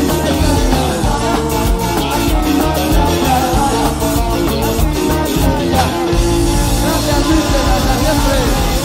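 Rock band playing live, with drums, electric guitar and bass. About six seconds in the drum hits stop and a held chord rings on.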